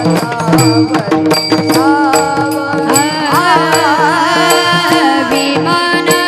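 Marathi devotional bhajan music: a steady drone, drum strokes and a melodic line that bends and glides in pitch through the middle, with no words sung.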